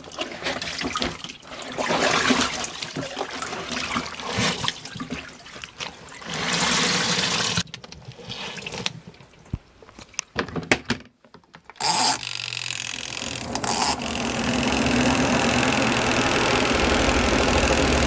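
Auauna portable twin-tub washing machine spinning out rinsed laundry: uneven water sounds first, then the spin motor starts with a low hum and settles into a steady run with a faint whine.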